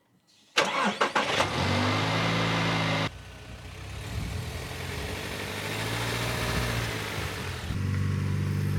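Vehicle engine running as the car or truck drives off, with road noise. The sound starts abruptly about half a second in and drops and changes suddenly about three seconds in and again near the end, as cut-together clips do.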